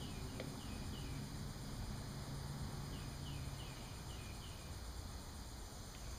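Outdoor ambience with a steady background hiss, and a bird calling in runs of short, falling chirps, once near the start and again around the middle.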